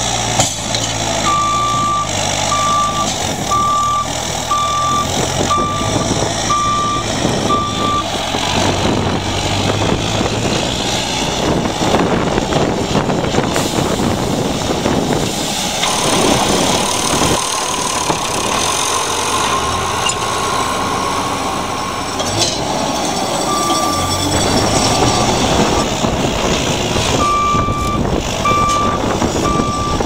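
JCB 540 Loadall telehandler's diesel engine running as it loads grain, with its reversing alarm beeping evenly, about one beep a second, for several seconds near the start and again in the last part.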